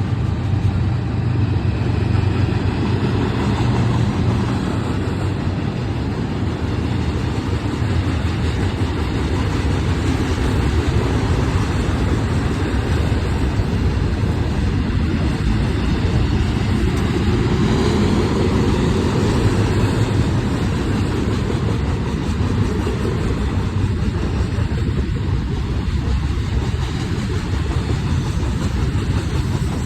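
Union Pacific diesel freight locomotives working as they pull a manifest train past, giving a steady low engine rumble that swells slightly about two-thirds of the way through.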